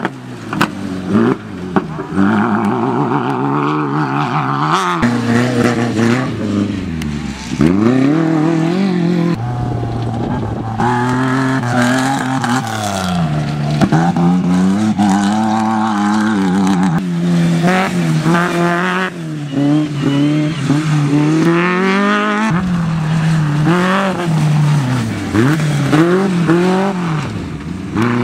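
Off-road racing buggy engines revving hard, their pitch climbing and dropping over and over as the cars accelerate and ease off through the corners. Abrupt changes mark a switch from one car to the next.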